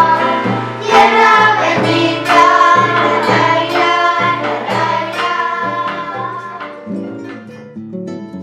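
A song sung by several voices together over instrumental accompaniment, growing quieter in the last couple of seconds.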